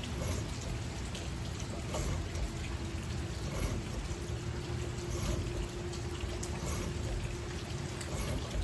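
Double-bevel broadhead blade being stroked along a sharpening stone, making a steady scraping hiss while the second side of the blade is sharpened.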